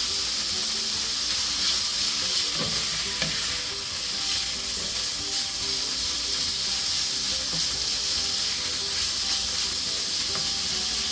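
Diced beef steak sizzling steadily in hot oil in a cast-iron skillet, stirred with a wooden spatula.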